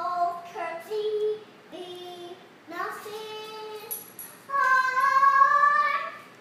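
A young girl singing her own made-up song solo, in short phrases broken by brief pauses, ending on one long held note near the end.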